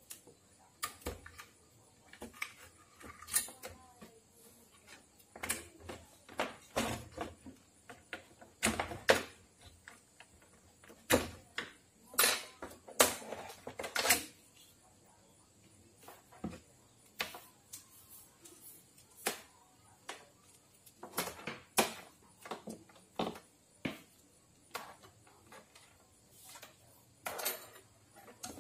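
Irregular clicks, knocks and light rattles of hands handling a CRT television's circuit board and its cables on a wooden workbench, with a busier cluster of louder knocks in the middle.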